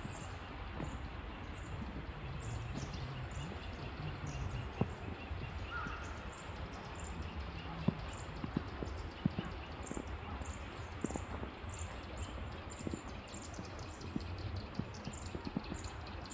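Footsteps crunching in fresh snow at a steady walking pace, about two steps a second, over a low steady rumble.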